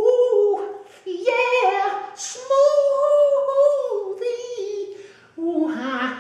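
A man singing unaccompanied in a high voice, wordless held notes that slide up and down, in three phrases with short breaths between them.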